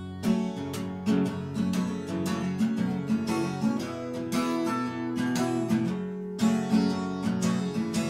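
Steel-string acoustic guitar fingerpicked in an instrumental passage, with individual notes ringing and overlapping and a sharp pluck about every second.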